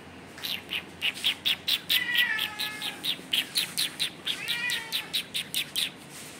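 Animal calls: a rapid run of short, high-pitched chirps, about five a second, with two longer falling cries among them.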